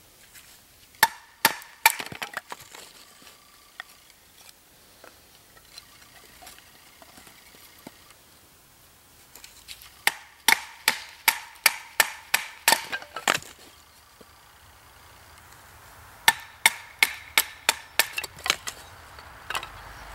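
A fixed-blade knife being batoned lengthwise through a thin stick: a wooden baton strikes the blade's spine in quick runs of sharp, woody knocks, about three a second, splitting the stick. There are a few strikes about a second in, then two longer runs of about a dozen each in the middle and near the end.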